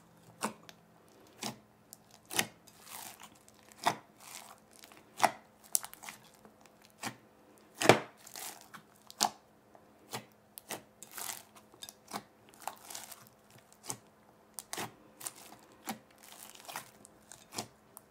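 Hands squishing and kneading thick glossy slime mixed with foam beads in a glass bowl, giving irregular wet pops, clicks and crackles, roughly one or two a second, with the loudest pop about eight seconds in.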